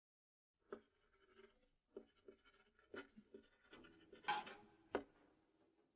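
Near silence broken by a few faint, scattered clicks and taps and one brief scratchy hiss about four seconds in.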